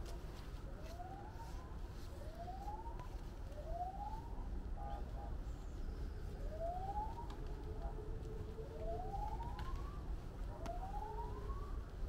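A long stick swung hard through the air, giving a short rising whistle on each swing, about seven swings at an uneven pace, over a low steady rumble of outdoor background noise.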